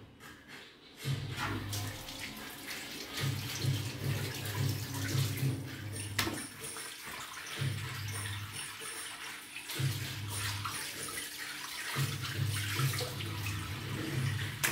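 Kitchen tap running into a steel sink, water splashing as raw chicken fillets are rinsed, with a low hum that comes and goes.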